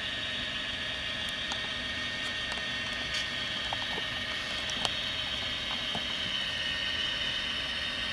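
HO-scale Proto 2000 SD60M model locomotive running, its Tsunami sound decoder playing a steady diesel engine sound through the model's small speaker, with a constant high tone and a few light clicks.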